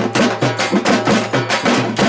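Fast, steady drumming, with sharp strokes several times a second in an even rhythm.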